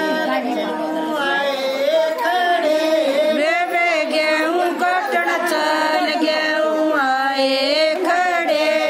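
A woman singing a folk song unaccompanied, with long held notes that waver in pitch.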